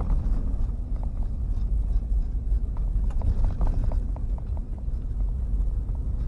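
Vehicle driving: a steady low road rumble with scattered light rattles and clicks.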